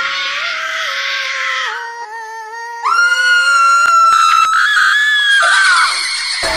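Horror scream sound effect: a shrill, pitched screaming voice that wavers and steps in pitch, then jumps louder and higher about three seconds in. It holds there and slides down to an end about six seconds in.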